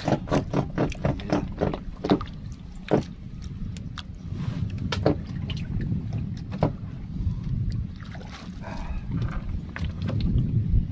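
Wind buffeting the microphone and water slapping a small wooden canoe, a steady low rumble. A quick run of knocks on the wooden hull comes in the first three seconds, with a few more knocks a little later.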